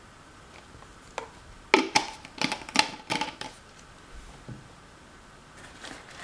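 Small hard plastic items handled on a tabletop: a single click, then a quick run of clicks and clatters about two seconds in, and a few softer knocks near the end.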